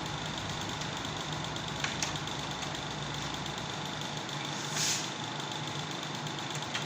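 Window air conditioner running with a steady hum, its compressor on, with a faint tick about two seconds in and a brief hiss near the end.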